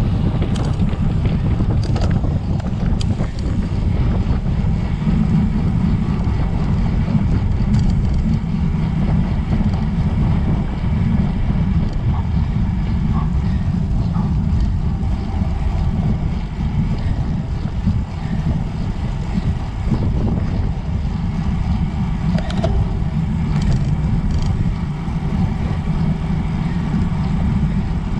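Wind buffeting the microphone: a loud, steady low rumble with a few faint clicks.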